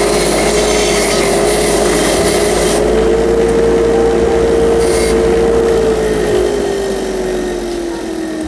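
Edison bench grinder running with a steady whine while a bolt held in pliers is scrubbed against its wire wheel, with scratchy brushing in the first few seconds and briefly again near the middle. From about six seconds in the motor winds down, its whine falling in pitch and fading.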